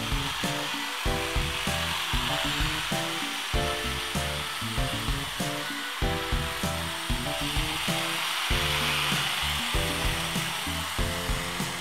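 Background music with a steady beat over the buzz of a handheld corded power tool, used as a rug duster, run against a hanging rug.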